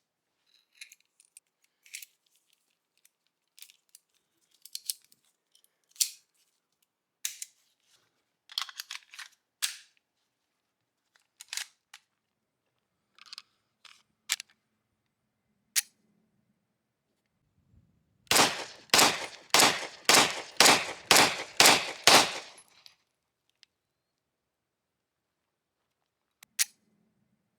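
Restored Walther P38 pistol test-fired: a quick string of about nine shots in four seconds, each with a short ringing tail. Before the shots come scattered sharp metallic clicks of handling the pistol.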